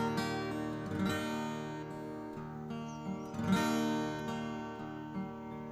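Background music: strummed acoustic guitar chords ringing out.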